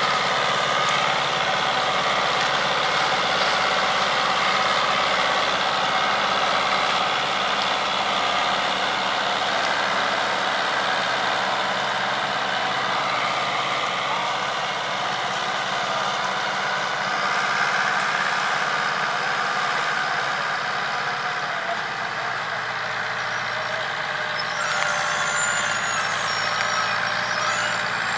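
Fiat 640 tractor's diesel engine running steadily under load as it pulls a trolley heaped with sugarcane through soft field ground. A brief high warbling sound comes in near the end.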